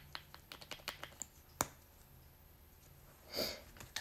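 Small plastic makeup tubes being handled, with light, quick clicks and taps, one sharper click about a second and a half in, and a short soft hiss near the end.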